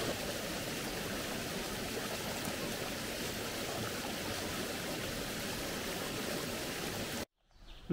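Forest stream rushing over rocks in small cascades, a steady even rush of water that cuts off abruptly about seven seconds in.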